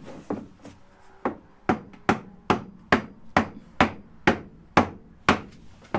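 Hammer knocking a wooden frame board down into place in a tongue-and-groove floor: a steady run of about a dozen sharp blows, two to three a second.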